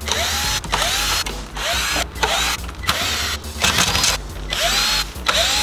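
Cordless drill backing screws out of a car radio's metal chassis. It runs in about eight short trigger pulses, each starting with a rising whine as the motor spins up.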